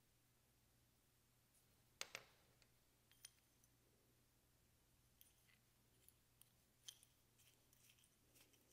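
Near silence: room tone with a faint steady low hum and a few faint clicks and ticks, the sharpest about two seconds in and the rest scattered through the second half.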